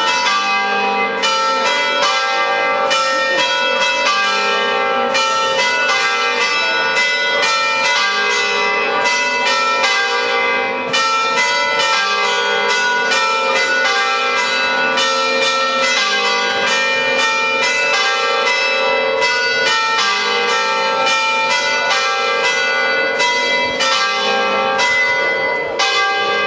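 Church bells ringing a fast peal: several strikes a second, each leaving long ringing tones that overlap into a continuous clangour.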